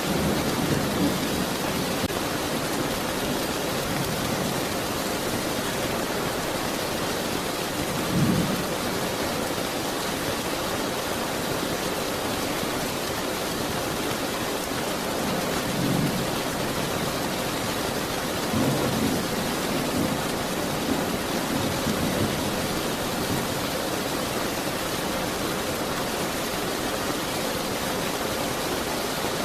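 Steady rain falling, an even hiss, with low rumbles of thunder breaking through several times: at the start, about 8 seconds in, about 16 seconds in, and a run of rumbles a few seconds later.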